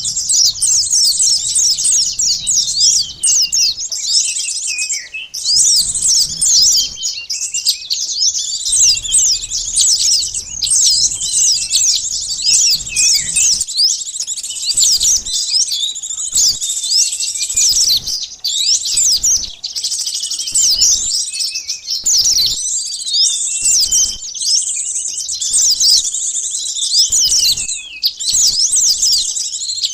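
Bird-lure recording of small birds, sunbirds among them, chirping in a dense, noisy chorus: many quick, high-pitched chirps and short falling notes overlapping without a break.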